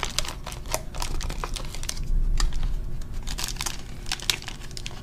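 Foil-faced bubble insulation and aluminium foil tape crinkling and crackling as hands wrap the tape around it and press it down. The crackles come quickly and irregularly throughout.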